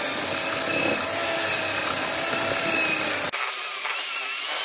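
Corded electric drill spinning a wire wheel brush, with a cast-iron brake caliper held against it to scour off rust and grime: a steady rough scrubbing with a high whine over it. About three seconds in the sound abruptly turns thinner and quieter.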